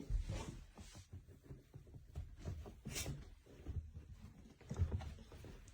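A small dog's paws on fabric-covered foam dog stairs as it climbs up and back down: soft, irregular thumps and scuffs.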